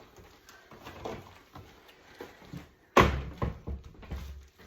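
Kitchen knocks from fetching a bowl: a few faint taps, then one sharp bang about three seconds in, followed by several lighter knocks.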